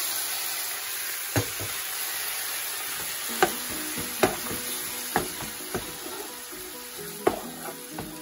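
Soy sauce and mirin seasoning sizzling in a hot frying pan of green peppers and edamame, with a wooden spatula knocking against the pan about eight times as the food is stirred.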